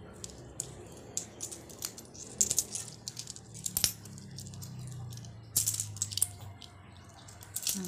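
Coins clinking as they are picked up, sorted and set down on a floor mat: a string of short, irregular clinks, bunched in small clusters.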